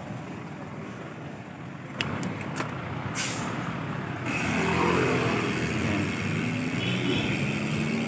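Road traffic noise with a motor vehicle's engine, growing louder from about four seconds in as a vehicle comes close.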